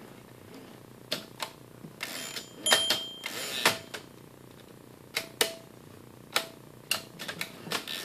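Carriage of a 1936 Erika Model M typewriter pushed along by hand during margin setting: irregular mechanical clicks and short rattles. A brief bell-like ding comes a little under three seconds in, typical of the margin bell.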